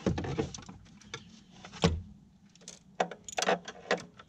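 A socket ratchet and metal tools clicking and clinking on the alternator bracket bolts, with one sharp knock about two seconds in and a run of quick clicks near the end.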